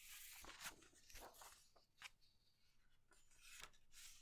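A sheet of paper being folded in half lengthwise and creased by hand: soft rustling and sliding, with several sharp crinkles as the fold is pressed down.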